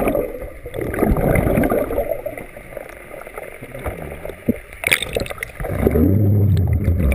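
Water sloshing and gurgling around a GoPro held underwater, muffled, with surges as the camera moves, then breaking the surface near the end with a low hum.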